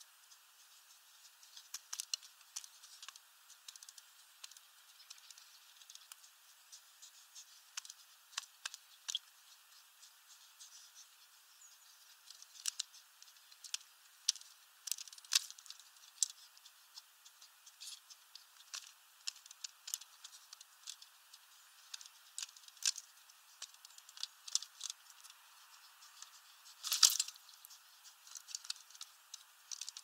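Feral pigeon pecking seed from a plastic window feeder tray: irregular sharp taps of its beak, often in quick runs, with one louder knock near the end.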